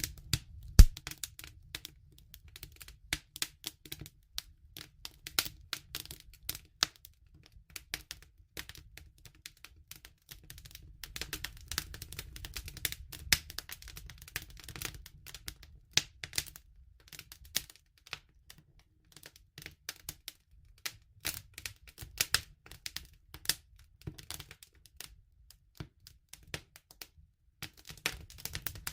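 Campfire crackling: burning wood snapping and popping in irregular sharp clicks, some quick clusters and some single loud pops, the loudest about a second in, over a faint low rumble.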